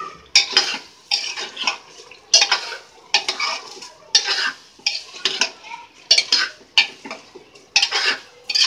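Steel spoon stirring rice and vegetable masala in an aluminium pressure cooker, scraping and clanking against the pot about twice a second, as the rice is mixed in to fry.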